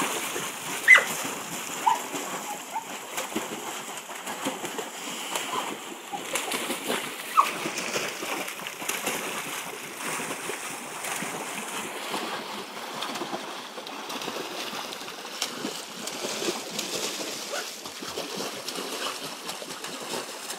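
Dogs swimming in an above-ground pool, paddling and splashing water continuously. A few short high squeaks come in the first several seconds, about a second in, near two seconds and near seven seconds.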